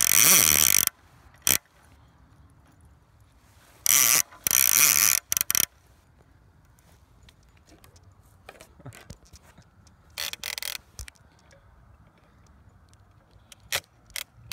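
Conventional fishing reel ratcheting as line is pulled off it by a running dog. The buzz comes in loud spurts, about a second in, again around four to five seconds in and briefly near ten seconds, with fainter scattered clicks in between as the pull eases.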